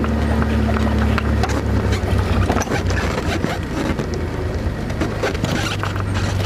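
Vehicle engine running at a steady low drone while driving over a rough dirt track, with frequent knocks and rattles from the body.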